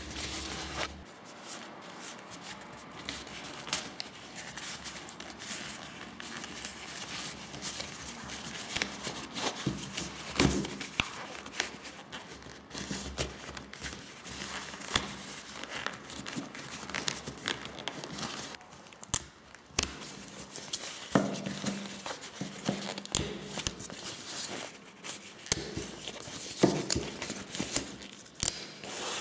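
An old gear gaiter's material being crumpled and pulled off its plastic frame by hand: irregular rustling and crinkling with many small clicks and snaps of plastic.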